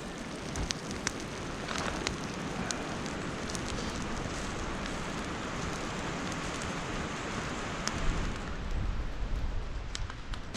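Bacon sizzling and spitting on the steel blade of a trench shovel used as a frying pan over a campfire: a steady hiss with scattered sharp pops.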